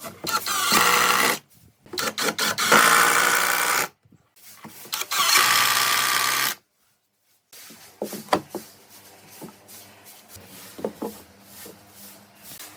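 A power tool running in three bursts of one to two and a half seconds, each cutting off abruptly. After a brief gap come quieter scattered taps and knocks.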